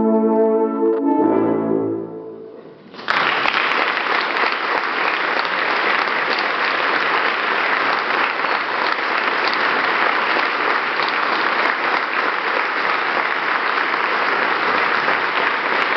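A brass quartet's final held chord cuts off about a second in, and a last low note dies away. About three seconds in, the audience breaks into steady applause that carries on.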